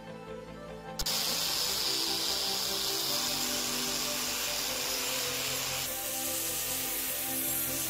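Angle grinder with an abrasive wheel scouring rust off an iron balance-scale beam, starting suddenly about a second in with a loud, steady hiss that eases slightly near six seconds in. Background music plays underneath.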